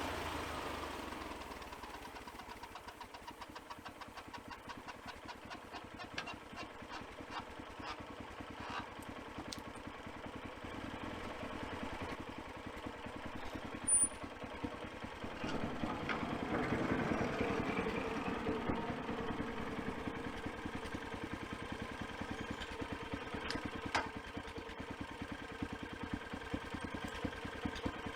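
An engine running steadily at idle. It swells for a few seconds about halfway through, then settles back, with a brief sharp sound just before the swell.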